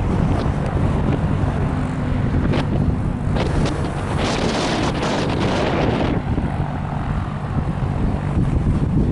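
Airbus A320-214 airliner's CFM56 jet engines, a steady low rumble as the plane flies over on its descent, mixed with wind buffeting the microphone.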